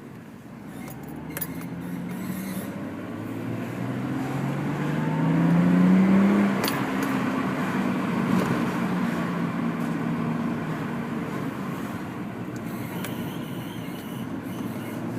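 Lexus IS300's straight-six engine and road noise heard inside the cabin while driving: the engine pulls up in pitch for a few seconds, shifts to a lower pitch just after halfway, then runs on more evenly.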